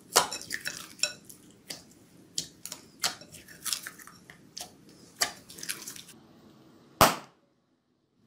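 Slime squeezed and kneaded by hand in a plastic bowl: irregular sticky clicks and pops of trapped air being squashed out, with one louder pop near the end before the sound cuts off suddenly.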